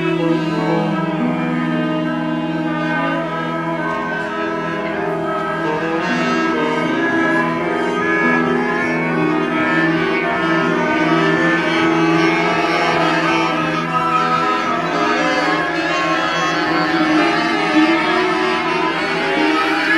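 Live large ensemble of woodwinds, brass and strings (clarinet, saxophones, trumpet, trombone, cello) playing layered, long-held notes.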